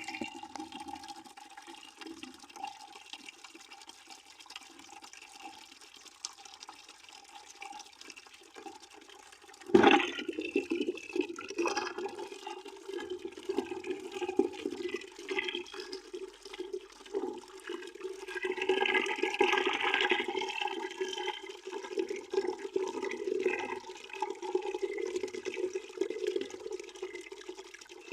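Water running steadily into a bucket, with a sudden loud splash about ten seconds in, after which the flow is louder and more churning.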